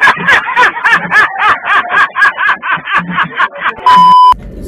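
A voice lets out a rapid run of short, loud, pitched syllables, about five a second, for nearly four seconds. It is cut off by a loud steady TV test-tone beep, which stops abruptly after about half a second.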